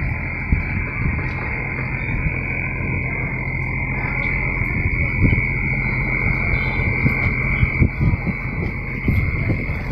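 Frogs calling in a steady, continuous chorus, with an uneven low rumble and a few soft thumps underneath.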